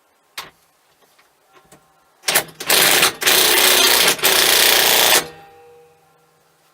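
Impact wrench hammering the steering hub's column nut tight. It runs in loud stop-start bursts for about three seconds and then stops, after a few light clicks.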